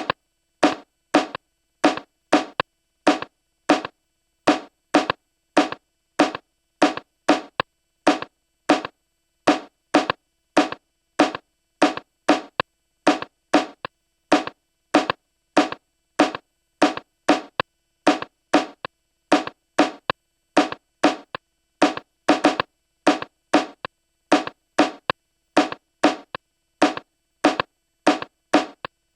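A single drum sample played back from an Akai MPC One, looping in a steady pattern of short hits, a little over two a second, with silence between them.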